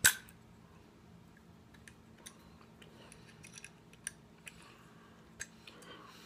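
Faint, irregular metallic clicks and ticks of a small hex key turning the set screws in an AR-15 gas block, tightening it onto the barrel. One sharper click comes right at the start.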